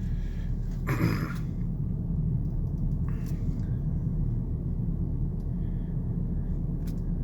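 Steady low rumble of a car driving, heard from inside the cabin, with a brief higher sound about a second in.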